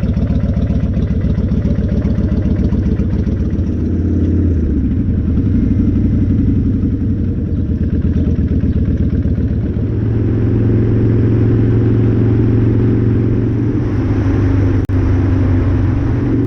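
Kawasaki Vulcan 1500's V-twin engine running loudly under way, its pitch stepping up about four seconds in and again about ten seconds in as the motorcycle gathers speed.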